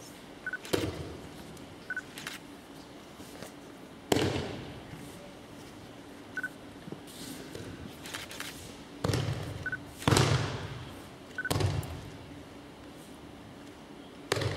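Aikido throws and breakfalls on tatami mats: bodies slapping and thudding onto the mat about seven times, two of them loud, each ringing briefly in the hall.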